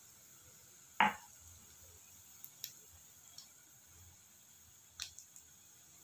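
Semolina batter deep-frying in hot oil: a faint, steady sizzle, with one sharp clink about a second in and a few light ticks later.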